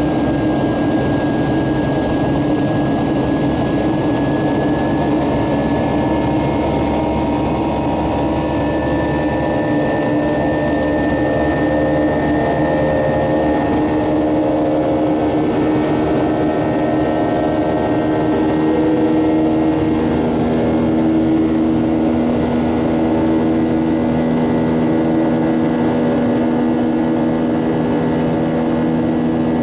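Airliner cabin noise during the climb after takeoff: a steady rush of jet engine and airflow noise heard inside the cabin, with several humming engine tones that drift slightly in pitch and shift about two-thirds of the way through.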